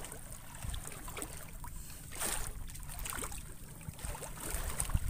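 Sea water lapping and splashing against the hull of a small outrigger fishing boat, with a steady low rumble of wind on the microphone and a few faint knocks; the water swells up briefly about two seconds in.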